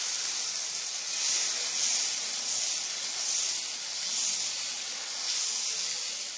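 Dosa batter hissing and sizzling on a hot tawa as it is poured and spread thin with a ladle, a steady hiss that swells and eases slightly with the strokes.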